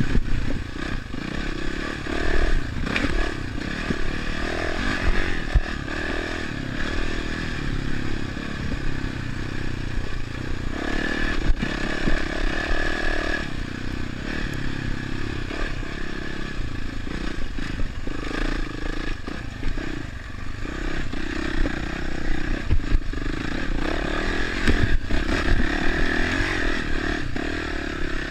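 Dirt bike engine running under way, its note rising and falling with the throttle, with frequent knocks and rattles as the bike goes over rough, rutted ground.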